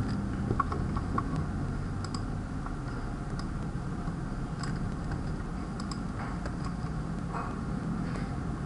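Computer keyboard typing: scattered, irregular keystrokes over a steady low background noise.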